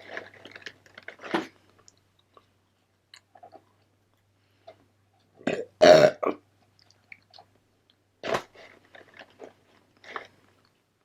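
Close-up chewing and biting of fast food, in short irregular bursts, with a loud belch about six seconds in.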